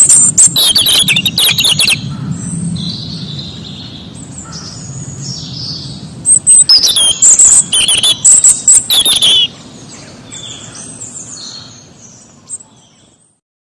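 A robin singing quick, high, varied phrases, loudest in two bursts at the start and about six to nine seconds in. The song fades out near the end.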